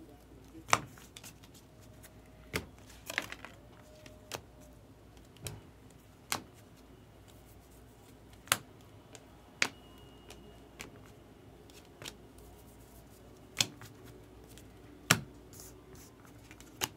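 A stack of 2024 Bowman baseball cards being flipped through by hand. There is a sharp card snap every one to three seconds, at an uneven pace, as each card is moved from the front of the stack to the back.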